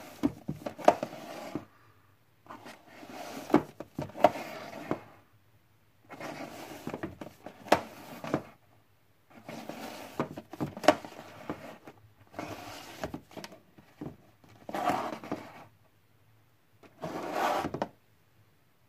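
Plastic Blu-ray cases being slid out of and pushed back into a tightly packed row on a wooden shelf, scraping against each other and the shelf. The sound comes in about seven bursts of a second or two, each with sharp clacks of the plastic cases.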